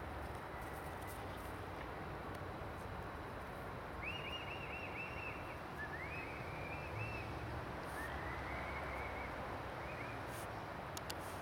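A bird calling off-camera in quick runs of short, high, arching notes, three runs between about four and ten seconds in, over a steady rushing background noise.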